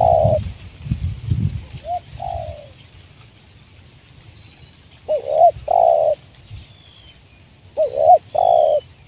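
Spotted dove cooing: repeated phrases of a couple of short hooked notes, each ending in a longer drawn-out coo, about every three seconds.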